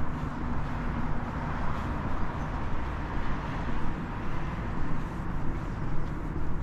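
Outdoor city ambience: a steady low rumble of distant traffic, with footsteps on stone paving about twice a second.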